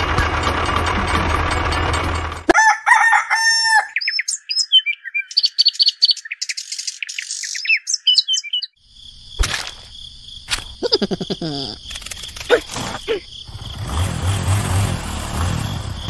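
A steady mechanical hum cuts off abruptly about two and a half seconds in. Bird calls and chirping follow, then a steady high insect-like trill with a few sharp clicks, and a low pulsing hum comes back near the end.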